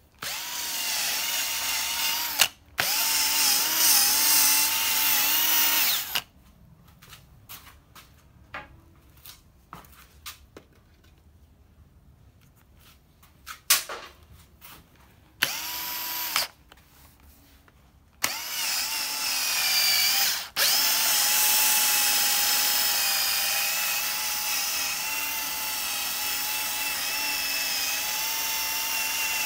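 Cordless drill spinning a foam polishing pad to polish a plastic headlight lens, its motor giving a steady whine. It runs twice for a few seconds, stops for about ten seconds of small clicks and handling, runs again briefly, then runs steadily from about two-thirds of the way in.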